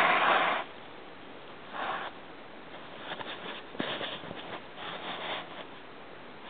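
Short bursts of rustling and scuffing, the loudest right at the start and the rest softer, with a few light clicks about three to four seconds in.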